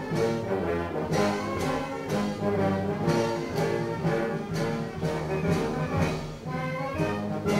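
Military band playing a march: trombones, sousaphones and other brass over a bass drum beating about twice a second.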